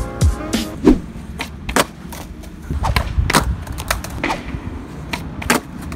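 Skateboard on concrete during flip-trick attempts: sharp wooden clacks of the tail popping and the deck hitting the ground, about a dozen knocks in all. There is a stretch of urethane wheels rolling around the middle, and the board clatters loose after a missed trick.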